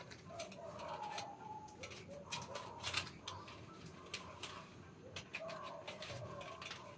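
Metal grommets of curtain panels clicking and knocking against a curtain rod as the panels are slid on, in many light, irregular clicks. Short mid-pitched tones recur between the clicks every second or two.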